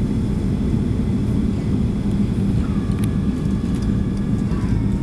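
Steady low rumble of engine and airflow noise inside a Boeing 737's passenger cabin during the approach to landing.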